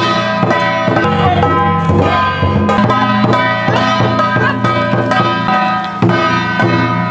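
Traditional temple ritual music: sustained pitched melody instruments over a steady beat of drum strokes.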